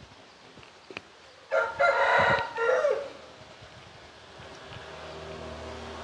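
Parrot-beak Aseel rooster crowing once: a single crow of about a second and a half that ends on a falling note.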